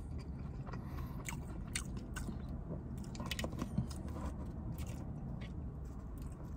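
A man chewing a mouthful of McDonald's fast food close to the microphone, with scattered small crunches and clicks over a low steady hum.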